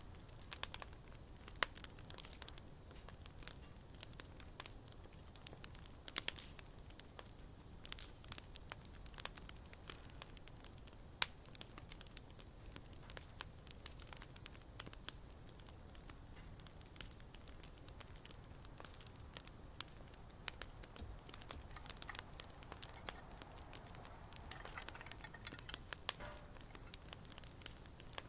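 Bonfire crackling, with irregular sharp pops and snaps over a low steady hiss.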